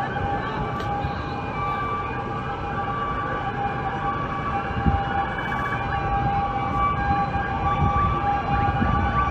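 Emergency-vehicle sirens sounding in the street below: steady high tones held throughout, with more sirens wailing up and down near the end, over a low rumble.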